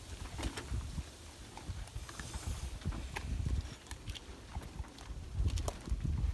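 Scattered light clicks and scuffs over a low rumble on the microphone, with a short hiss about two seconds in.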